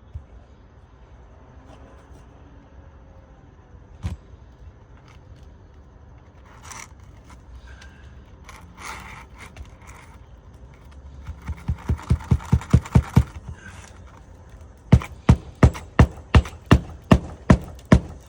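Hammer blows driving roofing nails into shingles: first a quick run of light taps that grows louder, then about ten harder, evenly spaced strikes. Before the hammering there is some scraping.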